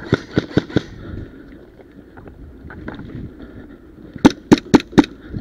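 Airsoft gun shots: a quick string of about five shots at the start, then four louder airsoft pistol shots about a quarter second apart near the end.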